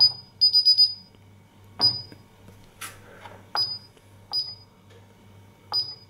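Paradox LCD alarm keypad beeping at key presses: a single short high beep, then a quick run of about five beeps as the master code is accepted, then single beeps a second or so apart as the menu keys are pressed. One dull click falls near the middle.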